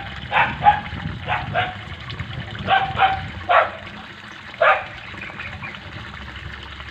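A dog barking about eight times, mostly in quick pairs, stopping about five seconds in, over the steady rush of water from the waterfall.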